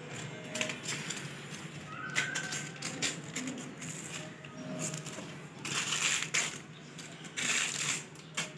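A clear plastic bag crinkling and rustling in irregular bursts as a kitten bats and noses at it, loudest about six seconds in and again near the end.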